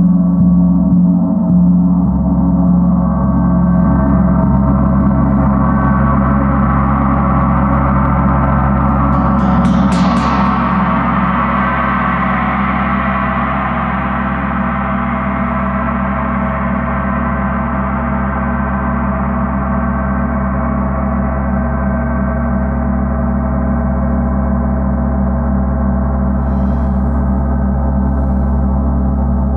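A 38-inch Paiste Earth Year planet gong, tuned to C sharp at about 136 Hz, played with a soft mallet: a dense, sustained wash of ringing tones. It swells to a peak with a bright shimmer about ten seconds in, then slowly dies away.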